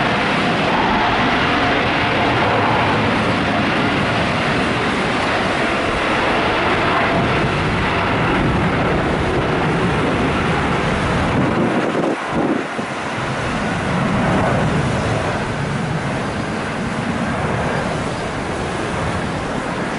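Boeing 787 Dreamliner's jet engines at takeoff thrust during the takeoff roll, a steady loud rush, dipping briefly about twelve seconds in.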